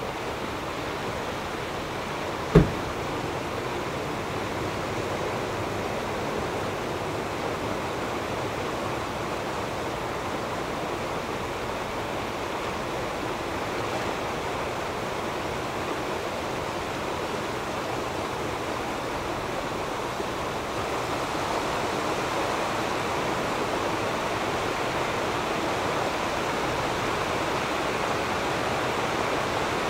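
Muddy flash-flood water rushing down a creek bed and through the culverts of a concrete bridge, a steady rush that grows a little louder in the last third as more water arrives. A single sharp knock sounds a couple of seconds in.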